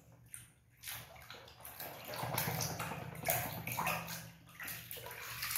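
A hand sloshing and swirling through a basin of soapy water, with irregular splashes that grow busier and louder about two seconds in.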